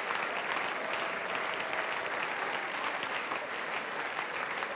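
Hall audience applauding steadily, a dense patter of many hands clapping.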